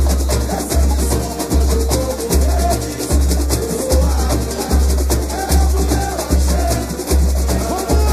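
Samba school drum section (bateria) playing a samba-enredo live, with deep surdo beats a little under a second apart under a dense, even rattle of shakers and high percussion.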